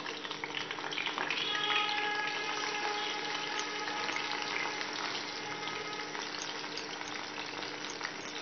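Batter-coated tapse (paradise threadfin) fish deep-frying in hot oil in a kadai, a steady sizzle. The fish are being turned over with a slotted spoon, and the sizzle swells about a second in, then settles.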